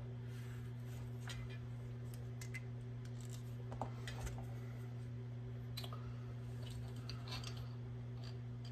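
Scattered light clicks and taps of small pistol parts being handled and set down, over a steady low hum.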